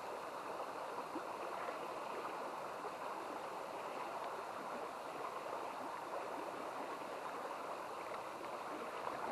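Steady rushing of a shallow, low-flowing river current.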